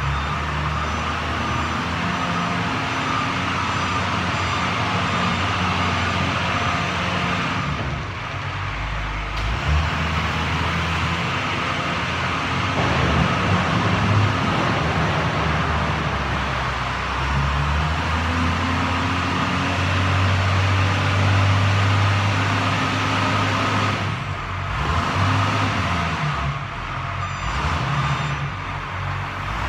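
Wheel loader's diesel engine working the salt pile, rising and falling in pitch as the machine drives and lifts its bucket, heard from inside a truck cab.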